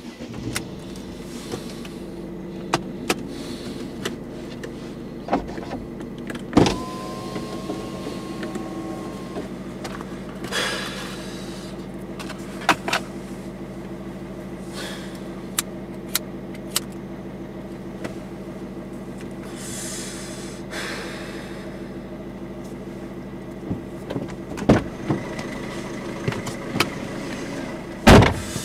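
Inside a parked car: a steady low hum with scattered clicks and knocks, as of someone shifting and handling things in the cabin. A short rising tone about seven seconds in levels off and is held for a couple of seconds, and a burst of louder knocks comes near the end.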